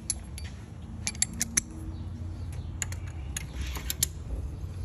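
Metal hand tools clinking as a socket and extension are picked up and handled: a string of irregular sharp clicks and clinks, several in quick succession about a second in, over a low steady hum.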